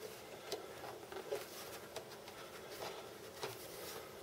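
Faint scattered clicks and light scraping of hard plastic as a 2006 Jeep Grand Cherokee tail light housing, its replacement circuit board just snapped in, is handled and turned over.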